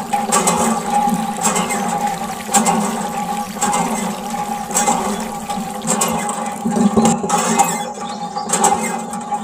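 Stream of water from a small tube splashing onto a toy backhoe loader and wet sand, over a steady hum.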